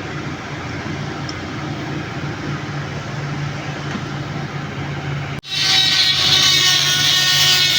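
Steady machine noise with a low hum, cut off about five seconds in by louder guitar music.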